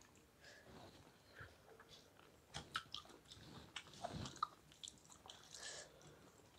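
Faint chewing of rice and egg curry, soft wet mouth sounds with a few sharp clicks clustered around the middle.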